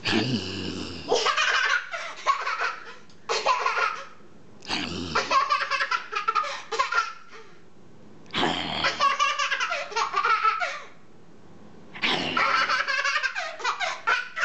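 A parent growls in four short rounds about four seconds apart. Each growl is answered by a toddler's hysterical belly laughter in rapid choppy pulses.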